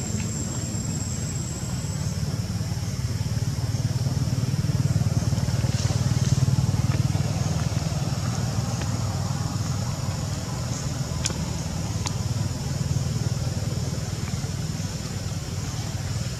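A steady low motor rumble, like a vehicle engine, growing louder a few seconds in and easing off again, with a single sharp click later on.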